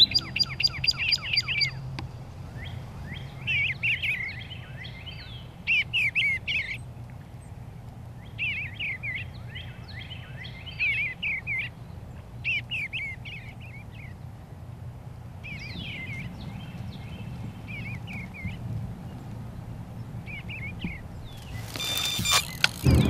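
Wild songbirds singing: repeated runs of quick, sweeping chirps that come in short phrases every second or two, over a faint steady background noise. Near the end there is a brief loud rush of noise.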